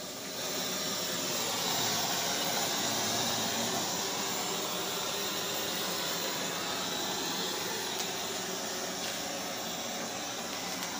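Portable butane gas torch burning with a steady hiss as its flame is played over a plucked chicken to singe the skin. It gets louder about half a second in.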